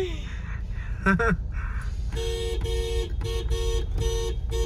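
Low engine and road rumble heard from inside the cabin of a Mahindra Thar Roxx on the move. From about two seconds in, a rapid two-tone beeping joins it at about four beeps a second.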